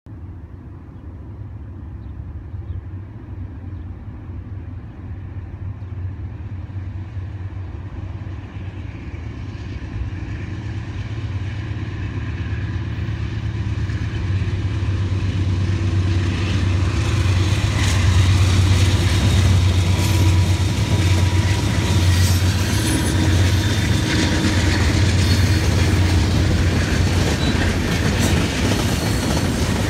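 Freight train led by two GE C40-8 diesel locomotives, their engine drone building steadily louder as they approach and loudest about two-thirds through. Then the freight cars roll past with a rushing rail noise full of short clicks.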